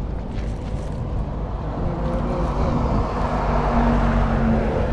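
A motor vehicle going past: engine hum and road noise building to a peak about four seconds in.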